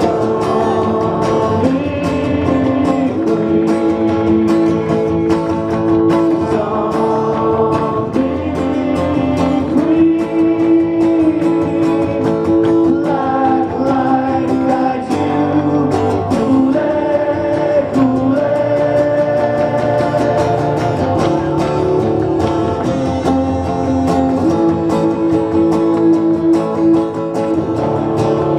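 Live acoustic band performance: two acoustic guitars played under a male lead voice singing, with many notes held long.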